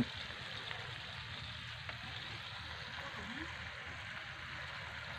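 Chopped chilies and instant seasoning sautéing in oil in a wok, a faint steady sizzle.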